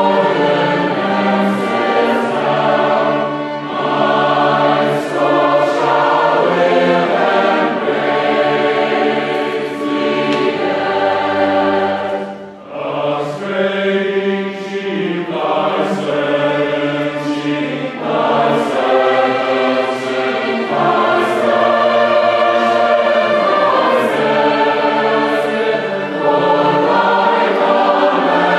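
A choir singing in several parts, with long held chords and a short break between phrases about twelve seconds in.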